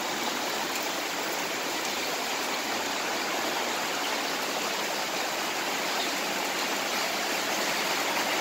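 Heavy downpour of rain falling steadily, an even hiss.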